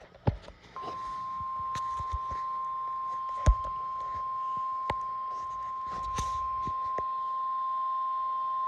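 NOAA Weather Radio warning alarm tone: a single steady high beep near 1 kHz that starts about a second in and holds without a break, sent as the weekly test of the alarm. A few sharp knocks sound over it, the loudest about three and a half seconds in.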